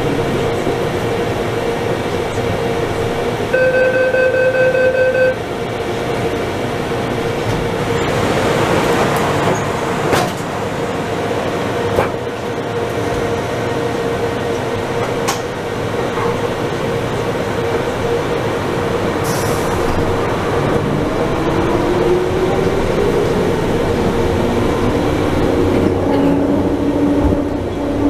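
Rubber-tyred automated metro train running, heard from inside the front car: a steady hum and rolling noise. A steady electronic beep lasts nearly two seconds a few seconds in. Near the end a motor whine climbs in pitch as the train speeds up.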